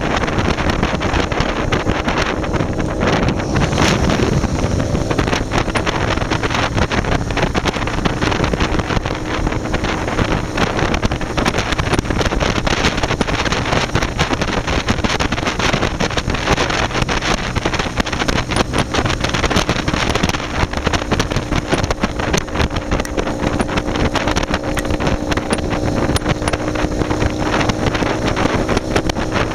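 Wind rushing over the microphone of a motorcycle cruising at highway speed, with the engine's steady drone underneath.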